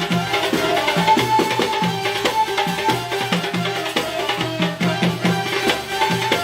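An Arabic orchestra playing instrumental music: a melody line of held notes over a fast, busy hand-drum rhythm.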